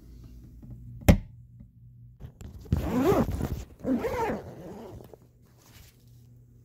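Handling noise from a phone being moved and covered: a sharp knock about a second in, then two rasping rubs against the microphone.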